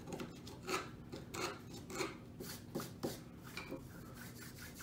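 Screwdriver scraping and picking wood chips out of a mortise bored in white oak: about half a dozen short, irregular scrapes and clicks that die away after about three and a half seconds.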